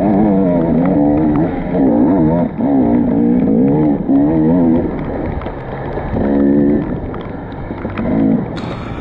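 Off-road motorcycle engine revving up and down as the throttle is worked, its pitch rising and falling every second or so. About five seconds in it drops back to shorter throttle blips, and there is a sharp knock near the end.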